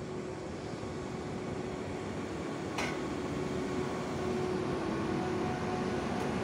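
Frecciarossa 1000 (ETR 1000) high-speed electric train rolling slowly along the platform: a steady hum over a rushing noise that grows louder as it nears, with a single sharp click about three seconds in.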